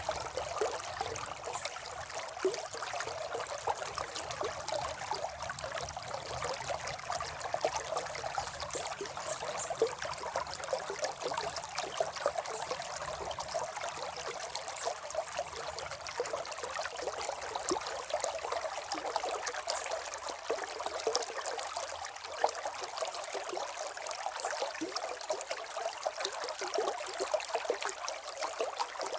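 Running water of a river or stream, a steady burbling and trickling with many small splashes.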